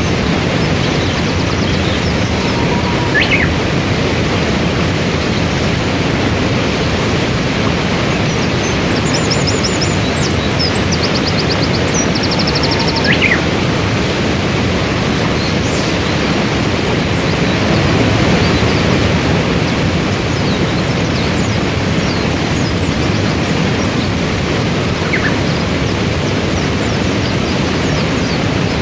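Steady rush of a waterfall and whitewater river. A few short bird chirps sound over it, with a brief rapid bird trill about ten seconds in.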